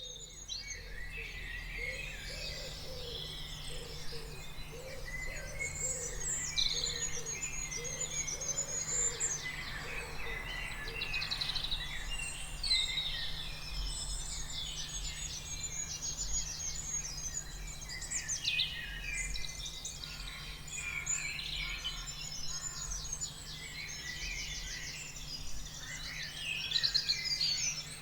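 Several birds singing at once, their overlapping high trills and warbles running on throughout, with a lower call repeated about once a second during the first ten seconds or so. A steady low hum sits underneath.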